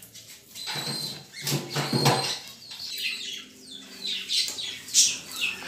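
Rustling and knocking as mixed pigeon feed grain and its containers are handled, with short, high, falling chirps in the second half.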